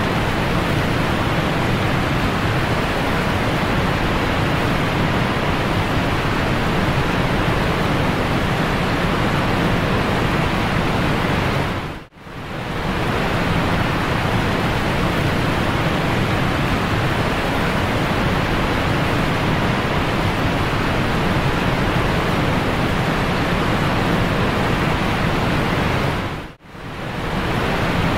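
Steady, loud rushing noise, briefly cutting out about twelve seconds in and again near the end.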